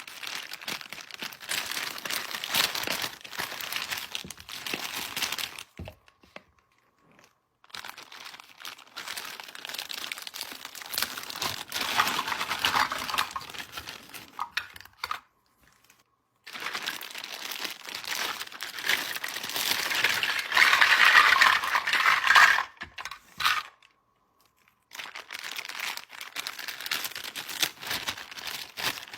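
Packaging crinkling and tearing as a toy set is unwrapped by hand, in stretches of several seconds broken by three short, abrupt silences.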